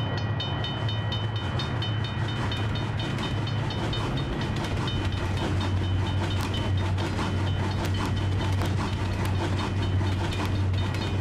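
Railroad level-crossing bell ringing, about four strikes a second, over the low, steady rumble and wheel clatter of a passing train.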